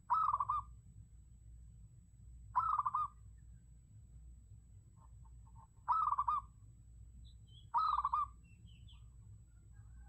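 Zebra dove decoy calling: four short, trilled coos, each about half a second long and two to three seconds apart, with fainter higher chirps near the end over a faint low hum.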